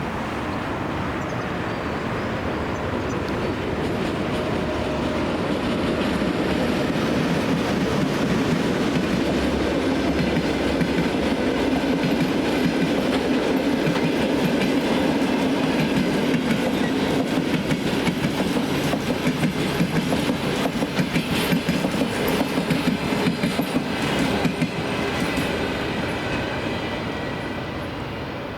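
Passenger train hauled by an EP1M electric locomotive pulling out and rolling past. The rumble builds, then in the later part the wheels set up a rapid clickety-clack over the rail joints before it fades near the end.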